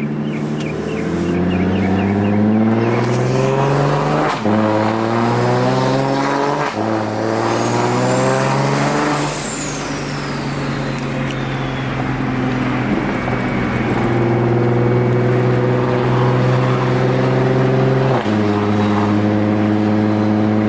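A single-turbo BMW N54 inline-six runs loud through its aftermarket exhaust as the car pulls away and climbs through the gears at moderate revs. Its note rises and drops sharply at each upshift, about four and seven seconds in, then settles into a steadier cruise. Midway a thin high whistle rises and falls away.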